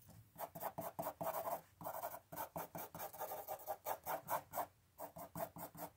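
Pencil scratching on paper in quick, short flicking strokes, about four a second with a couple of brief pauses, drawing eyelashes.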